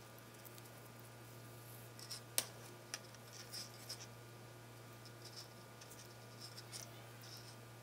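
Faint rustling and scraping of paracord being pulled and worked through a key ring by hands, with a few small clicks, one sharper about two and a half seconds in, over a steady low hum.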